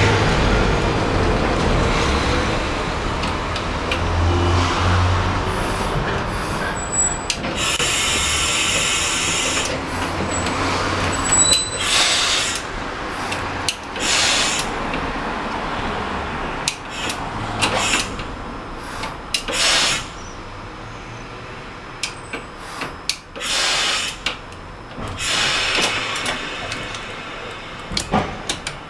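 Opicina tramway car running on its track, heard from the driver's cab: a steady rumble and rattle of wheels and body. Several loud bursts of hiss and a scatter of sharp clicks and knocks come through, and the running noise grows quieter toward the end.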